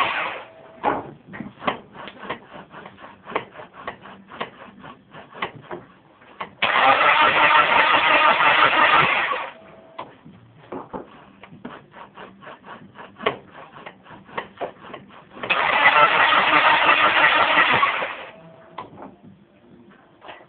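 Turbocharged Chrysler 420A 2.0 L four-cylinder cranking on the starter without firing: the no-start that is the car's fault. One cranking attempt ends just after the start, and two more of about three seconds each follow, with faint irregular clicking in the pauses between them.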